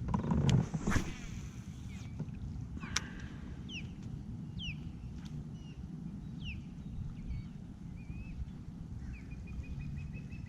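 Birds calling in short falling chirps, then a fast run of repeated high notes near the end, over a steady low rumble of wind and water around a kayak. A short burst of noise about a second in and a sharp click a few seconds later.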